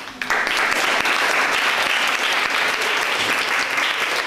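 An audience applauding steadily, a dense patter of clapping that breaks out suddenly just after the start.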